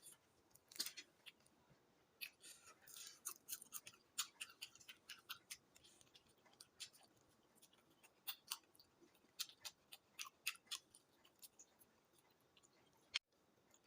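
Close-miked eating sounds: soft, irregular chewing clicks and mouth smacks, with one sharp click near the end.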